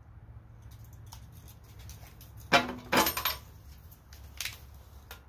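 Light metallic clinks and rattles of a jump-starter pack's clamp and cables being handled and clipped onto the engine. The loudest, ringing clink comes about three seconds in, with a smaller one near the end.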